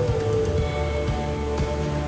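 Background music: a melody with held notes over a steady bass pulse.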